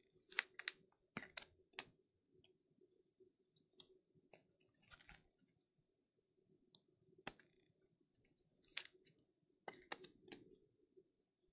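Trading cards being handled and slid into plastic sleeves and toploaders: scattered soft clicks and a few short plastic swishes, the loudest near the start, about five seconds in and just before nine seconds.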